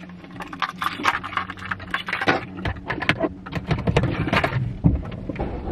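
Handling noises in a car cabin: a quick run of clicks, knocks and rustles. About halfway through, a low rumble comes in and keeps going, the car's engine running.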